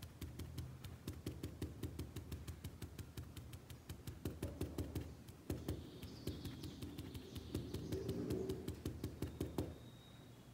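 Paintbrush tapped rapidly against cloth laid over a board, stippling paint: an even run of light taps, about four or five a second, that stops just before the end.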